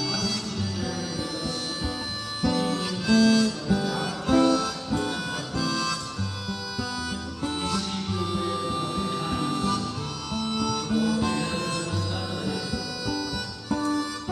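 Music: a melody of held, reedy notes over a moving bass line, with a steady beat.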